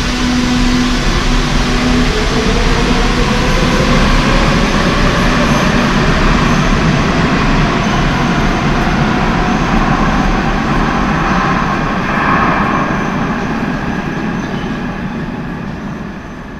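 Madrid Metro train running in the station: a loud steady rumble with a motor whine rising in pitch, fading near the end.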